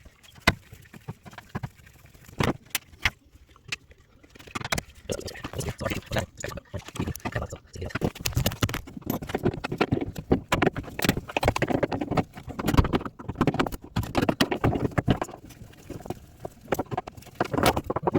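Irregular clicks, knocks and scraping of hands and tools working on metal and plastic washer parts, sparse at first and busier from about four seconds in.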